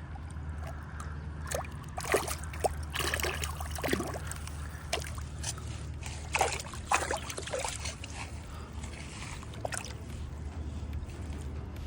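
Water splashing and sloshing in short irregular bursts as a fish thrashes at the surface against a landing net, busiest in the first half, over a steady low rumble.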